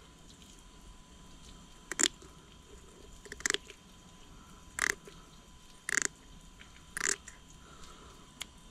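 Scissors snipping through the small bones of a flounder fillet: five short snips roughly a second apart.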